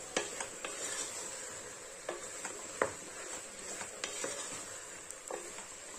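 Wooden spatula stirring button mushrooms through a masala in an aluminium pressure cooker: scattered knocks and scrapes against the pot, about one every second, over a faint sizzle.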